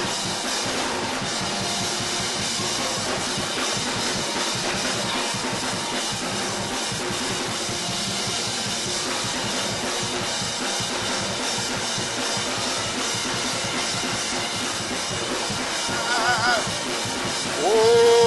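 Live church praise music driven by a drum kit playing a fast, steady beat. A voice cries out near the end, and a sustained held chord comes in just before it ends.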